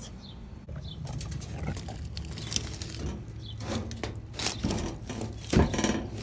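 Footsteps and rustling handling noise from someone moving along a narrow passage with a handheld camera: scattered clicks and scrapes over a steady low hum, with a couple of louder thumps near the end.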